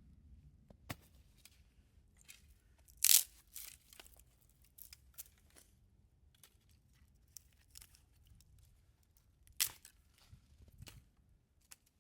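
Scattered rustling and handling noises, with two short, louder tearing sounds, one about three seconds in and one near the end.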